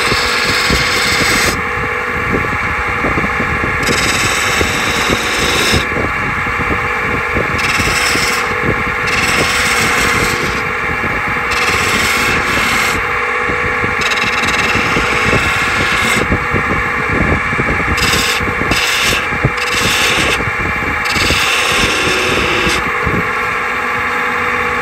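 Record Power wood lathe running with a steady hum while a hand-held turning tool cuts a spinning purpleheart handle, the scraping cut coming and going every second or two as the tool is pressed in and eased off.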